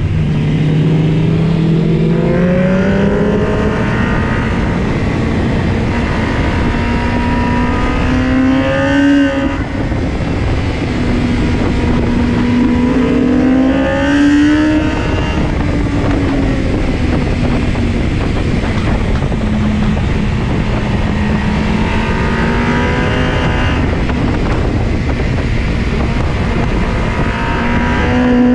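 Sport motorcycle engine heard from onboard on a race-track lap, its pitch climbing through the revs several times and easing back between, over a steady rush of wind.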